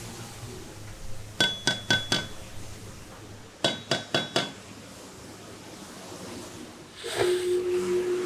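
Two quick runs of four sharp metallic clinks, each with a short bright ring, from the steel blade of a long hand-forged tuna knife. About seven seconds in, the electric motor of a wet stone grinding wheel starts and runs with a steady hum and hiss.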